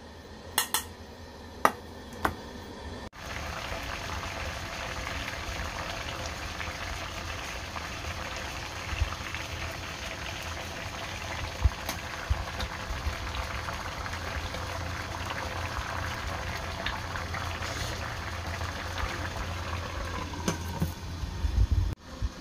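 A few light metal clinks from a stainless-steel bowl being handled, then, from about three seconds in, the steady bubbling hiss of water boiling in a stainless-steel steamer pot on a gas burner.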